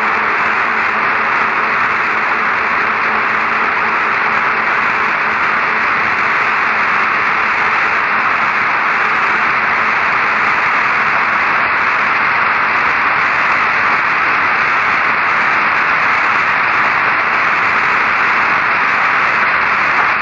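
Steady, loud static hiss of an open radio or communications channel carrying no voice, with a faint low hum underneath.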